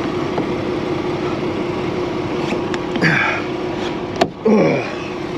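Semi-truck diesel engine idling with a steady hum, with brief scraping noises and a sharp knock about four seconds in.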